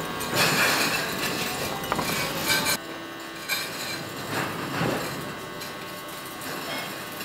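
Steel kiln car rolling along floor rails, its loaded ceramic tiles clinking and rattling. The sound is loudest in the first three seconds, then settles to a lower, steadier rattle with a few knocks.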